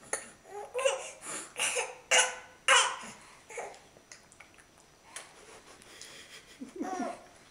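A young baby makes short breathy vocal sounds and babbles while being spoon-fed, with a cluster of louder bursts about two seconds in and a brief voiced sound near the end.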